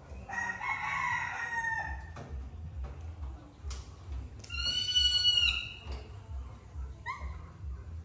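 Rooster crowing twice: a first crow in the opening two seconds, then a louder one held for over a second that droops at the end. Near the end there is a short rising call.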